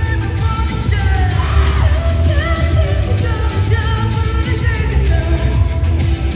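Live K-pop concert music with singing over heavy bass, played loud through the venue's sound system, with fans yelling and singing along close by.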